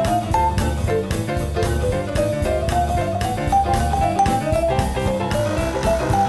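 Background music: a jazzy tune with piano and drum kit, steady beat.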